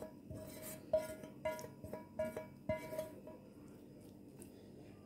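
Background music of light plucked string notes, about two a second, fading out a little after halfway. Beneath it is faint scraping and clinking of a spatula against a frying pan as food is moved into a clay dish.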